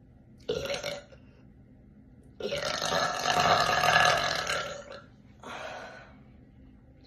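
A woman burping deeply three times: a short burp about half a second in, then a long, loud burp lasting about two and a half seconds, then a shorter, quieter one.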